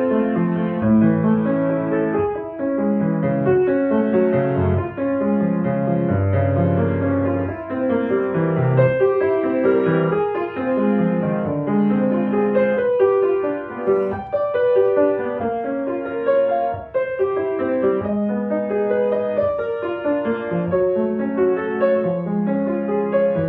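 Grand piano played solo: a steady stream of notes in the middle and lower range, with a deep low note held for a moment about six seconds in.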